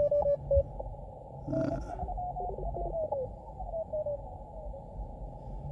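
Elecraft K2 transceiver receiving Morse code on the 20-metre band through its narrow CW filter: short beeping tones around 600 Hz over faint band hiss. As the tuning knob is turned, some tones slide down in pitch.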